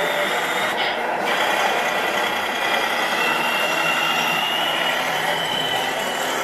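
Radio-controlled scale semi-truck pulling a tanker trailer, driving slowly toward and past close by: a steady whirring with a thin whine from its drive.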